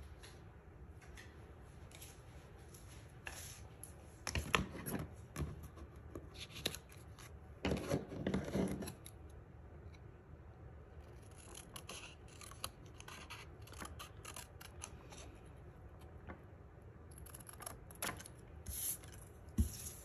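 Small paper snips cutting cardstock in a long series of short snips, with louder bursts about four and eight seconds in.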